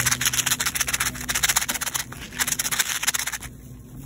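Shopping cart rattling as it is pushed over the hard store floor: a fast, dense clatter that stops suddenly about three and a half seconds in.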